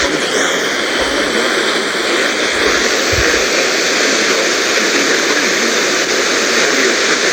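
Radio static: a steady, loud hiss of noise from the receiver with no intelligible broadcast, the weather-radio signal having faded too weak to carry the voice.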